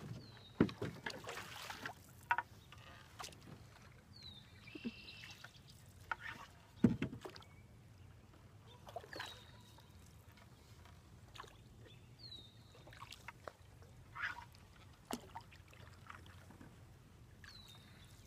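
Wooden canoe paddle strokes: water swishing and dripping off the blade, with scattered sharp knocks of the paddle against the canoe, the loudest about seven seconds in.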